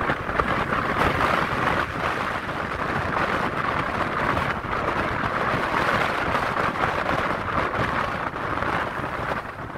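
Wind rushing past a moving car and buffeting the microphone, over a steady road rumble, with slight gusty swells.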